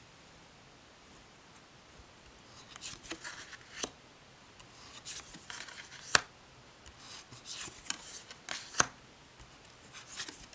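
Large oracle cards being handled: cards slid off the deck and laid down on a cloth-covered table, with soft paper rustles and a few sharp card clicks, the sharpest about six seconds in. The first couple of seconds are quiet.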